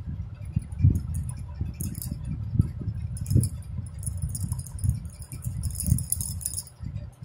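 Crocheting by hand close to the microphone: a crochet hook working through yarn, with irregular low thumps and rubbing from the hands, and light scattered high clinks and crackles.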